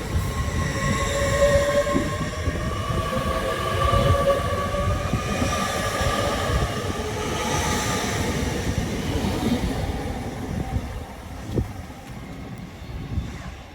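Trans Pennine Express passenger train pulling out of the station and accelerating away, a rumble with a whine that climbs in pitch, fading over the last few seconds.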